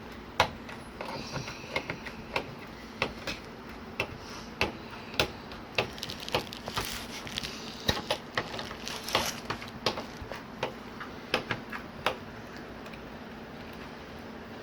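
Irregular clicks, snaps and short scrapes as old LED backlight strips are pried and peeled off the TV's back panel, coming away with their adhesive thermal tape. The clicks thin out near the end.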